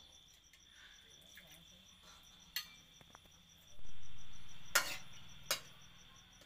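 A few sharp clinks of a steel ladle against a steel wok and bowls as curry is served, over steady cricket chirping. A low rumble swells about four seconds in and slowly fades.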